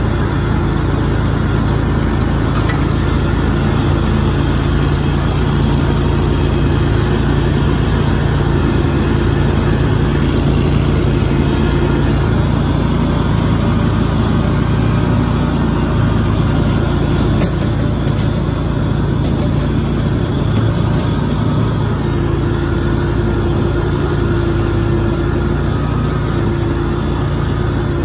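A motor vehicle's engine running steadily with a low hum as it drives along.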